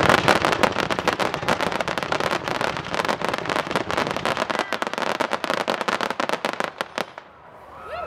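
Fireworks crackling: a dense, rapid run of sharp pops and cracks that thins out and dies away about seven seconds in.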